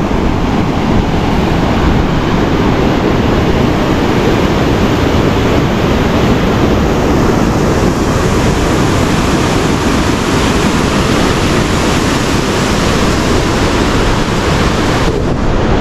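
Rushing mountain river, steady loud roar of white water over rapids.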